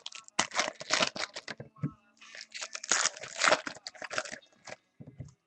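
Foil wrapper of a pack of baseball cards being torn open and crinkled, in two longer bursts of tearing and rustling with a pause between.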